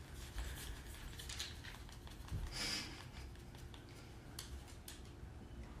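Faint rustling and scattered small clicks in a quiet small room, with one brief louder rustle near the middle, like clothing moving as a person shifts in place.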